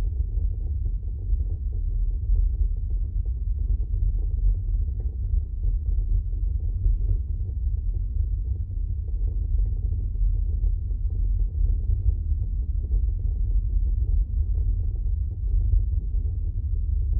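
Steady deep rumble from a VW e-Up electric car on the move, the noise its owner suspects comes from the rear axle.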